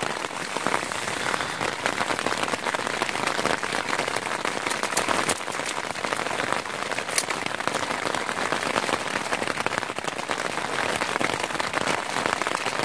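Heavy rain falling on a tent, heard from inside: a steady hiss of rain with many small, sharp drop hits.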